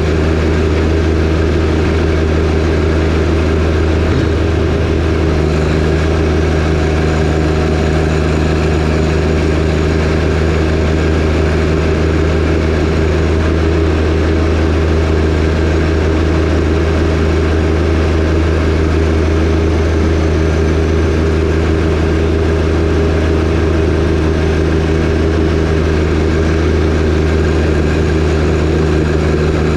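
John Deere 1025R compact tractor's three-cylinder diesel engine running steadily at constant speed while driving a 47-inch snowblower.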